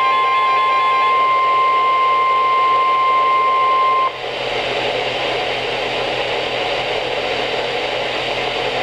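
Emergency alert tone of the NOAA Weather Radio kind: a single steady pitch held for about four seconds, announcing a flash flood warning. It cuts off abruptly and leaves an even radio hiss.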